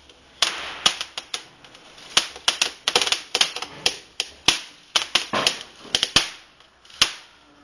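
Small firework spraying sparks, with many sharp, irregular crackles and pops, several a second, and a brief hiss about five seconds in.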